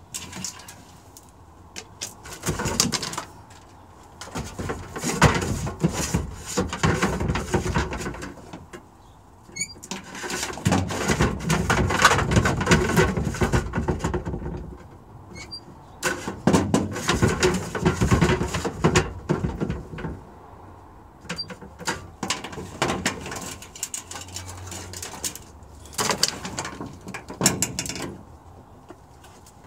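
Handling noise close to the microphone: irregular rustling and scraping in stretches of a few seconds, with sharp clicks and knocks, as a man moves about and handles things just below the camera.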